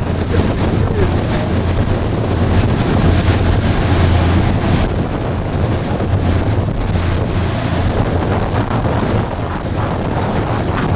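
A boat's engine running with a steady low drone under a constant rush of wind buffeting the microphone and water moving past the hull.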